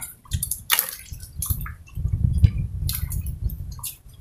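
Scattered small clicks and wet, squishy sounds of cooked shellfish shells being picked apart and sucked clean by hand, over a low rumble that swells in the middle.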